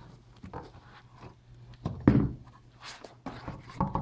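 Handling noise from unpacking a large flashlight and its box: a few scattered knocks and rustles, with a heavier thump about two seconds in.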